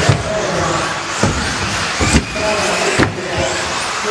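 Several 1/10-scale electric 4WD off-road RC buggies racing. Their motors whine up and down in pitch over a steady hiss of tyres, with four sharp knocks of cars hitting the track.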